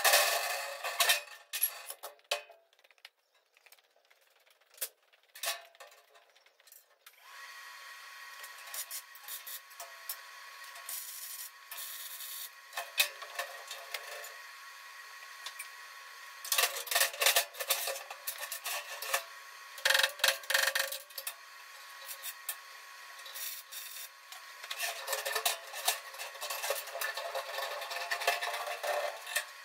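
Steel bars and tools being handled on a steel workbench: knocks and clatter at first, then scraping and rubbing of metal in several louder stretches. From about seven seconds in, a steady machine hum runs underneath.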